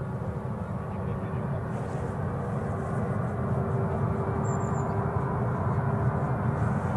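Airbus A380's four jet engines running as the airliner taxis: a low steady rumble with a steady hum, slowly growing louder.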